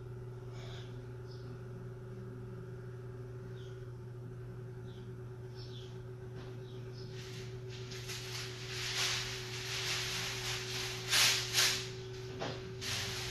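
Bristle brush dragging oil paint across a stretched canvas: faint strokes at first, then a run of swishing strokes from about halfway through, the loudest two near the end, over a steady low hum.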